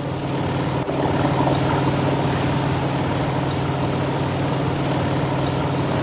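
Light single-engine propeller aircraft in flight, its engine giving a steady, even drone.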